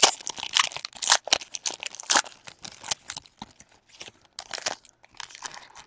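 Foil wrapper of a baseball card pack being torn open and crinkled by hand: a dense run of sharp crackles, loudest in the first two seconds, then lighter, quieter crinkling.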